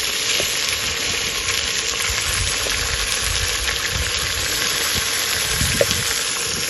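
Steady sizzling hiss of food cooking in a pot over the heat.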